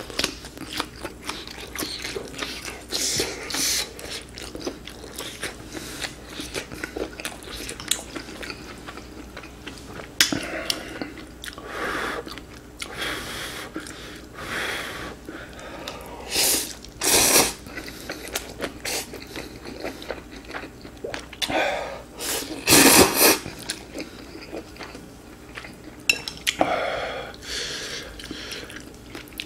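Close-miked eating of ramen: chewing, with a few longer, louder slurps of noodles, and chopsticks knocking against the dishes.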